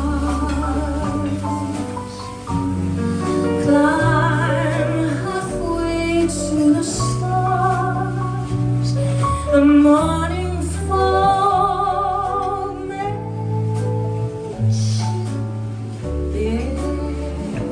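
A female singer sustaining notes with vibrato over an accompaniment of held bass notes that change every second or two.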